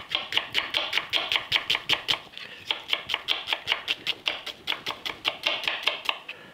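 Chef's knife slicing an onion on a wooden cutting board: quick, even knocks of the blade on the board, about six a second, with a short break about two and a half seconds in.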